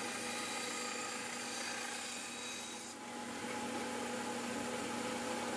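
Narrow benchtop belt sander running steadily, its motor hum and belt whir mixed with the hiss of a forged steel knife blade being ground against the abrasive belt. About three seconds in, the higher whine fades and the grinding hiss fills in.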